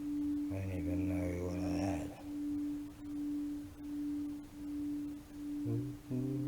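Japanese Buddhist temple bell ringing on after a strike: one steady mid-pitched tone that swells and fades in a slow, even pulse about every three-quarters of a second. A lower, wavering pitched sound joins it for the first two seconds and again in short pieces near the end.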